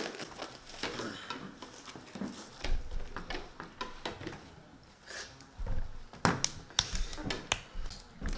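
Eating fufu by hand: crinkling plastic wrap as the fufu is unwrapped, soft squishes of the dough being pinched off, and scattered clicks and light knocks of hands and fingers against bowls, plates and the table.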